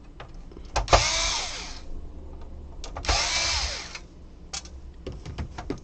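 Electric screwdriver running twice, about a second each, its whine rising then falling in pitch as it backs out Phillips screws. Light clicks of screws and parts being handled come in between.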